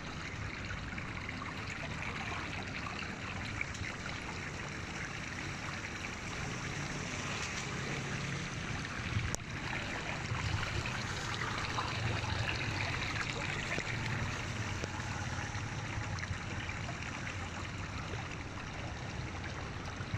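Muddy floodwater on the road running steadily into a small concrete roadside culvert opening, trickling and splashing as it drains through the cleared inlet. A single sharp click a little after halfway.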